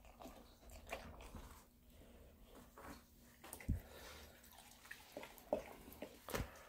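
Faint, scattered wet mouth sounds and small clicks from a black Labrador retriever eating soup out of a stainless steel bowl, with a soft thump a little past the middle and a sharper click near the end.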